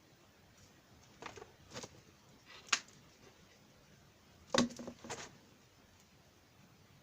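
A handful of short, sharp knocks and clinks of tools and parts being handled: a few light ones early on, a sharp one near the middle and the loudest a little later, followed by a couple more.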